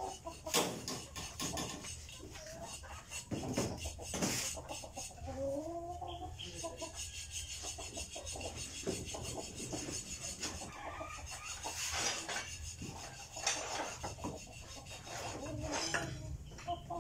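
Steel hand file scraping along a metal blade in repeated strokes to sharpen it. Chickens cluck, with one drawn-out call about five to six seconds in.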